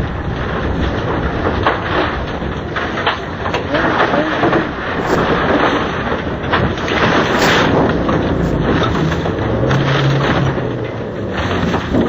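Inside a Citroën Saxo rally car on a gravel stage: loud engine and gravel noise, then in the second half a run of heavy crashing and scraping impacts as the car leaves the road into the trees and rolls over, smashing the windscreen.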